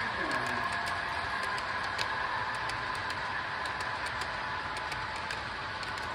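Model train of covered hopper cars rolling past: rapid, uneven clicking from the wheels on the track over a steady rolling hum.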